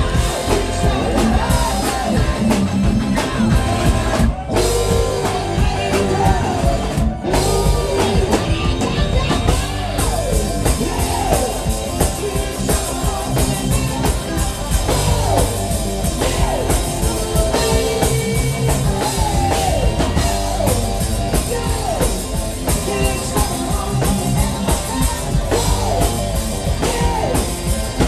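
Live rock band playing a hard-rock cover: a lead singer singing into a microphone over electric guitar, bass guitar and a drum kit.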